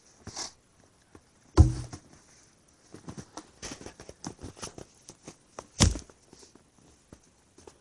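Footsteps and small scuffs and knocks, with two heavy thumps, one about a second and a half in and one near the end.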